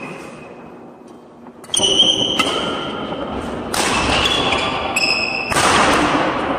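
Badminton doubles rally on a wooden sports-hall floor: rackets striking the shuttlecock with sharp knocks and sneakers squeaking as the players move, starting about two seconds in after a short hush.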